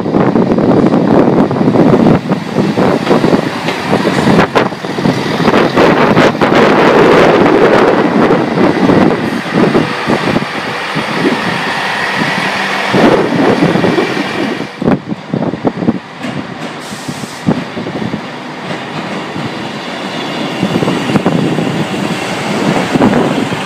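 Class 158 diesel multiple unit moving along the platform close by: diesel engine running, with wheels clicking and knocking over the rail joints. A faint high whine comes in about halfway through, and the noise eases off for a few seconds after that.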